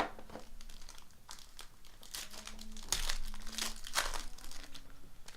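Trading-card pack wrapper crinkling and rustling as a pack is opened and handled, with irregular sharp crackles that are loudest about three seconds in.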